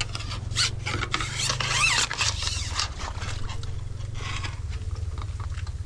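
Irregular spells of rasping, scraping sounds over a steady low hum.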